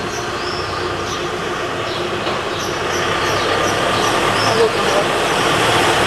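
Steady mechanical running noise, like a nearby engine or machine, growing slightly louder toward the end, with short high chirps over it.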